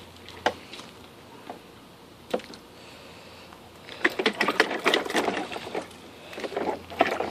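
Small hands splashing in the shallow water of a plastic toy water table, with plastic pieces knocking. A few single knocks come first, then a busy spell of splashing and clatter about four seconds in, and another short one near the end.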